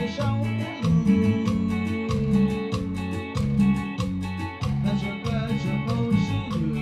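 Dance music with a bass line stepping between notes and a steady beat.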